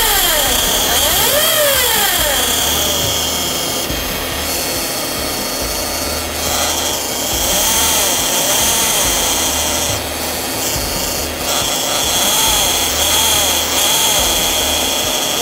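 Automatic transmission of a running 2015 Toyota Alphard, heard up close, giving off an abnormal mechanical whir: a steady high whine over a noisy hum, with a tone that rises and falls in slow arcs about every second and a half. It is the fault noise from the transmission that the workshop is about to overhaul.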